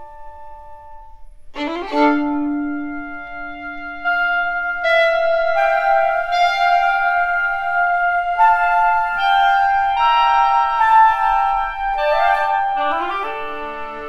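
Chamber orchestra playing. A fading violin line gives way, about two seconds in, to sustained woodwind and string notes that enter one after another and stack into a held chord. Near the end a quick running figure and lower string notes come in.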